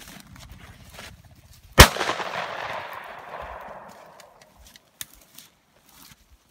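A single shotgun shot about two seconds in, its report rolling away and fading over the next couple of seconds.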